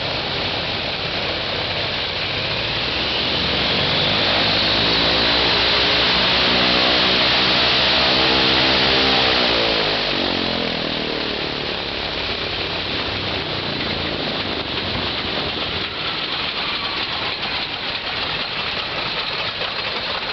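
Right-hand Shvetsov ASh-82 radial piston engine of an Ilyushin Il-14 running on the ground with its propeller turning. It runs up louder for several seconds, then about ten seconds in its pitch falls as it is throttled back, and it runs on lower and more unevenly.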